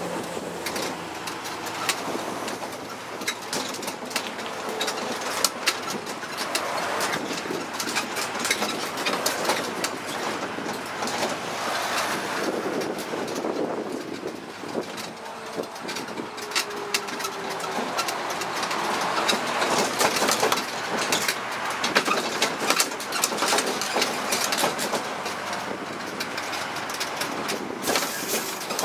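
Tourist road train rolling slowly, heard from inside its open carriage: steady engine and road noise under a constant rattle and knocking of the carriage.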